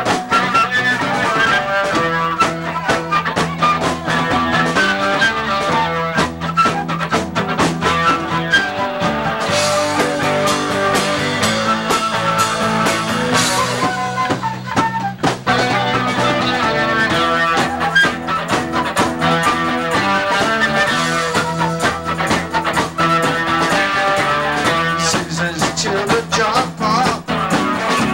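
Live rock band playing, a flute taking the lead over electric guitar, bass and drums.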